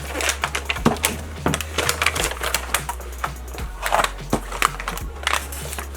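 Plastic slime-kit containers and packaging being handled and unpacked: a rapid, irregular run of clicks, taps and rustles.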